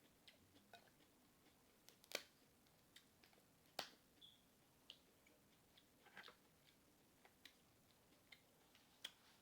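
Close-up eating sounds: quiet, scattered mouth smacks and clicks of chewing seafood, with sharper cracks about two and four seconds in and again near the end.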